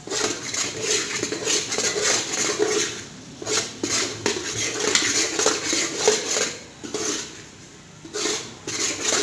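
Metal spoon scraping and knocking against a steel pot in repeated strokes, stirring semolina as it roasts in ghee. The stirring eases off briefly about three seconds in and again around seven to eight seconds in.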